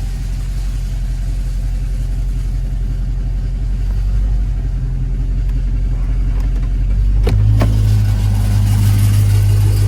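Dodge Charger Hellcat's supercharged HEMI V8 idling through freshly fitted catless mid pipes, a loud, steady low drone. About seven seconds in there is a sharp knock, after which the drone grows louder. The owner suspects an exhaust leak or something rattling at the new pipes.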